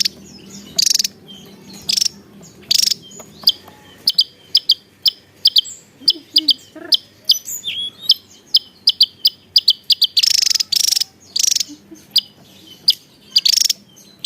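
Javan tesia calling: harsh, buzzy bursts, then a quick run of short, sharp high chirps at about three a second, then more buzzy bursts near the end.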